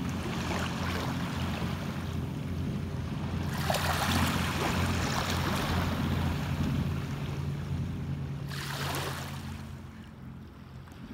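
Steady low drone of a boat engine running out on the water, with small waves washing at the shore. Two louder rushes of noise come about four and nine seconds in.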